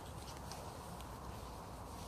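Faint rustling and a few light clicks over a steady low rumble.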